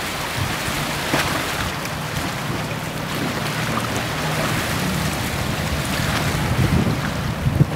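Trent-class lifeboat's diesel engines running with a steady low drone as it motors past, over the rush of its bow wave and wash, with gusts of wind on the microphone.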